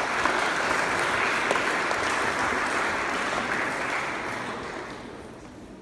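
Audience clapping, a steady round of applause that dies away near the end.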